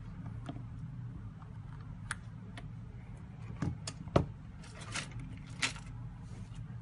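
Scattered light clicks and taps from small repair tools and phone parts being handled on a workbench, the loudest about four seconds in, over a steady low hum.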